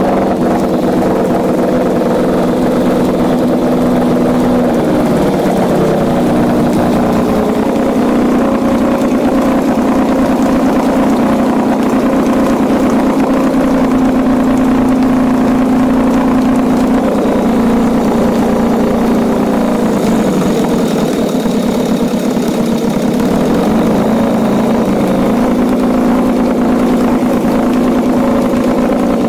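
1965 Evinrude Fisherman 6 hp two-stroke outboard motor running steadily on a test stand, its propeller churning a tub of water. The engine note wavers briefly about four to six seconds in, then settles again.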